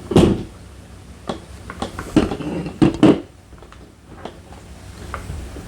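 Hands working a car door's latch assembly free: a series of sharp clicks and knocks of plastic and metal parts, loudest near the start and around two to three seconds in, then quieter handling.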